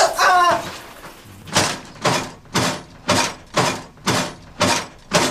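A man's short strained vocal cry, then a run of eight even, breathy whooshes at about two a second.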